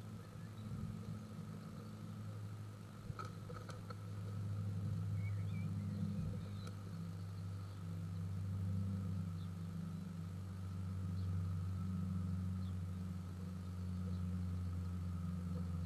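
A steady low hum that swells and eases, with a faint thin whine above it and a few faint, short, high bird chirps.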